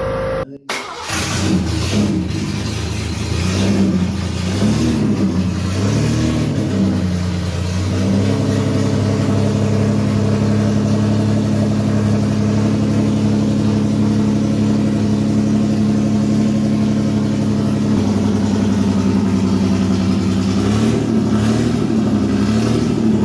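Rebuilt MGC 2.9-litre straight-six running on an engine test stand at its first start: it is blipped up and down several times, then holds a steady fast idle, with a few more blips near the end.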